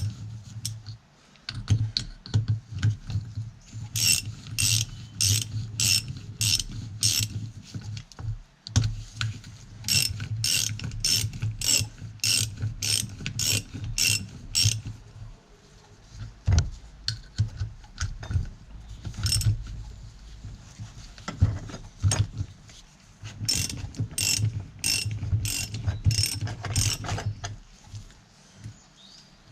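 Socket ratchet wrench clicking in runs of short strokes, about two clicks a second, with pauses between runs, as pump bolts are run down toward a torque of about 20 pound-feet.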